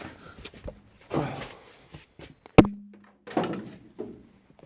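A single sharp metallic knock about halfway through, ringing briefly afterward, among softer handling and shuffling noises from work on the car's floor panel.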